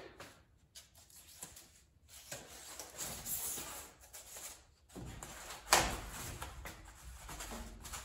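Rigid foam insulation board being slid into a metal garage door panel and pressed flat by hand: the foam rubs and scrapes against the door, with one sharp knock a little before six seconds in.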